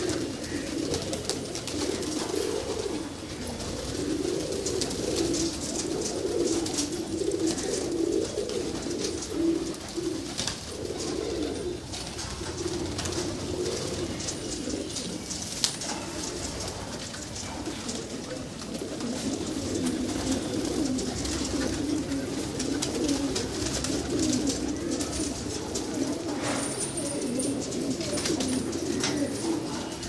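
A large flock of domestic pigeons cooing continuously, many voices overlapping, with frequent short clicks and wing flutters among them.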